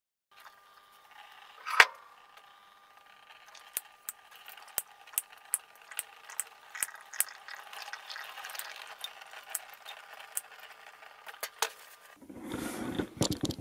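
Oil draining from the opened gyro housing into a plastic tub: a run of sharp drip ticks at irregular intervals over a faint steady trickle. One louder knock comes about two seconds in, and a rougher rustling near the end.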